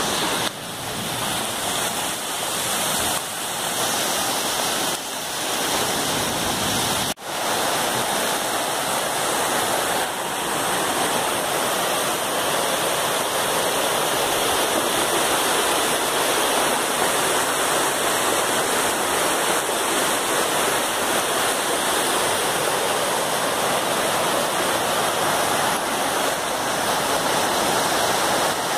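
Floodwater rushing down a street in a muddy torrent under heavy rain: a steady, loud rush of water, with a brief dropout about seven seconds in.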